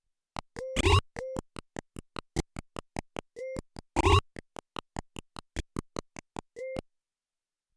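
Nord Drum 3P percussion synthesizer playing a sequenced drum pattern: quick, even ticks at about four a second, short pitched hits, and a louder, noisier hit that comes twice as the pattern repeats after about three seconds. The pattern stops about seven seconds in.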